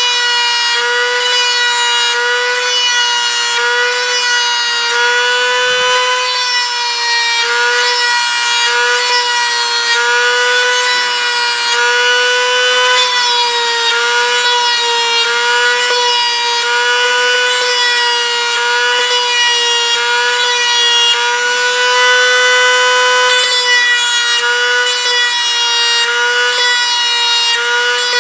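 Dremel rotary tool spinning a brass tube to press rivets, a steady high-pitched whine that wavers slightly in pitch as the tube is pressed in, with light rubbing against the surface.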